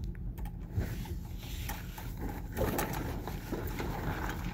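A steady low hum aboard a sailboat, with scattered light knocks and clicks from people stepping about the deck and handling gear.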